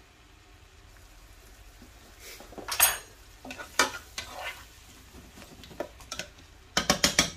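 A utensil stirring onions and garlic frying in olive oil in a pan, with scattered scrapes and knocks against the pan over a light sizzle. Near the end comes a quick run of about five knocks.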